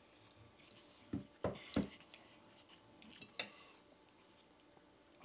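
Cutlery clinking and knocking against plates and bowls during quiet eating, a few short taps spread over the first three and a half seconds.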